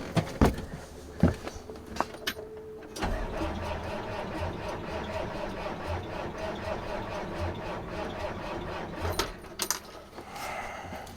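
A 1983 Kenworth K100 cabover's cold diesel engine cranking on the starter for about six seconds with a rhythmic low pulsing, without catching: a hard cold start. A few knocks and clicks come before the cranking and a couple more after it stops.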